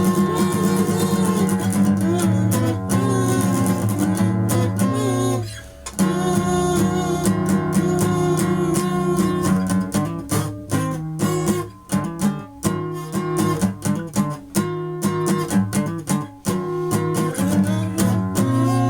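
Guitar music: sustained strummed chords that break off briefly about five seconds in, then come back as choppier, stop-start strumming in the second half.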